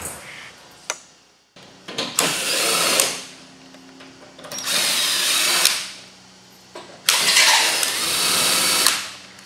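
DeWalt cordless drill fitted with a 7/16-inch socket, driving bolts through a plywood crate panel. It runs three times, a second or two each, and the last run is the longest.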